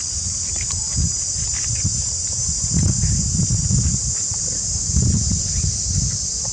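Insects droning steadily in a high, unbroken hiss, with low wind rumble on the microphone swelling and fading underneath.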